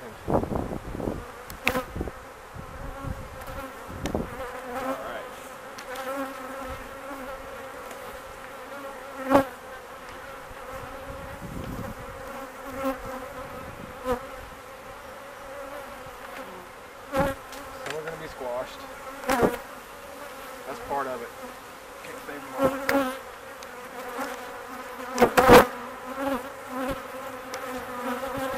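Honey bees humming steadily around a hive that has just been opened and worked. Several sharp wooden knocks come through it as the hive boxes and lid are set in place; the loudest is about three seconds before the end.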